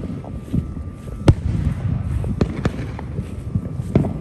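Fireworks bursting overhead: an irregular run of sharp bangs with smaller pops between them. The loudest bangs come about a second in and near the end.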